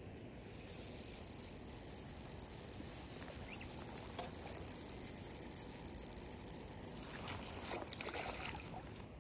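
Spinning reel being cranked as a hooked trout is played, a fine steady whir; near the end, a series of sharp splashes as the trout thrashes at the surface and is scooped into a landing net.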